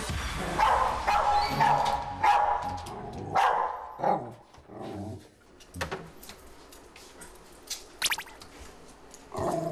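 Small dog, a Bichon Frisé, barking in a quick run of short barks for the first four seconds, then a few scattered barks. It is alarm barking at unfamiliar people.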